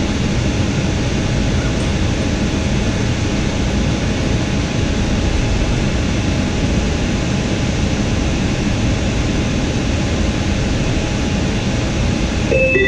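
Steady, even rushing hum inside a JFK AirTrain car standing at a station: the car's ventilation and onboard equipment running. A pair of electronic chime tones starts right at the end.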